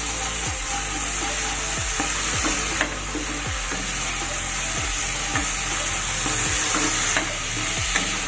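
Spice paste sizzling in mustard oil in a non-stick kadai while a wooden spatula stirs and scrapes it round the pan, with small knocks of the spatula now and then. This is the masala being fried down slowly (kosha).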